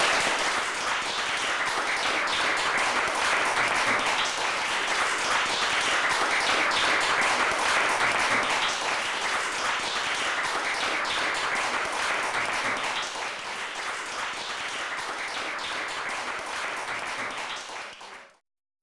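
Audience applause, many hands clapping, slowly dying down and then fading out quickly near the end.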